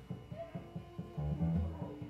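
Live improvised music: guitars picking notes over low, repeated notes, with a long held note coming in near the end.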